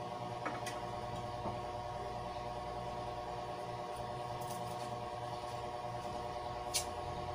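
Steady low room hum of several even tones, with a couple of faint clicks; no clear sound of the brush.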